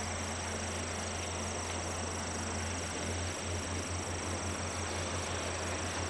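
Steady low machine hum under an even rushing hiss, with a constant high insect trill above; a little past halfway the hum begins to pulse several times a second.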